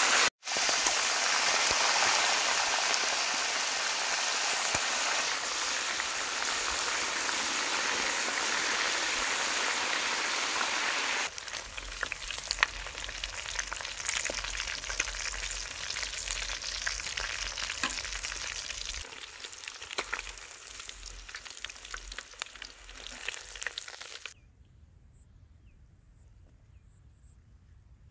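Whole quail deep-frying in a wok of hot oil: a steady, dense sizzle for the first third or so, then a quieter crackling fry with scattered pops. The sound drops to near silence for the last few seconds.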